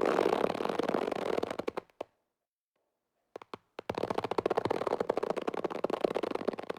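Rubber band being stretched, giving a dense creaking crackle of rapid tiny clicks that fades out about two seconds in. After a short gap and a few single clicks, a second stretch starts about four seconds in and continues to the end.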